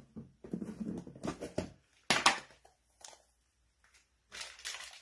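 Plastic rustling and crinkling as a plastic piping bag and a plastic tub are handled, with a louder, sharper crackle about two seconds in.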